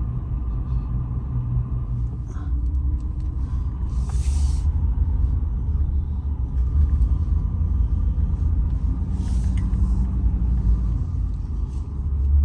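A Ram 2500 Power Wagon's 6.4-litre HEMI V8 idles with a steady low rumble. Two brief hisses come through, about 4 and 9 seconds in.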